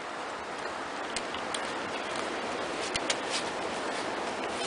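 Trekking-pole tips clicking against the trail, a few sharp, irregularly spaced ticks with a cluster of three about three seconds in, over a steady rushing hiss.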